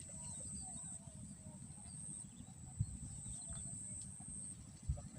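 Outdoor wetland ambience: a steady high-pitched whine with faint bird chirps over a low rumble, and two dull bumps about two seconds apart.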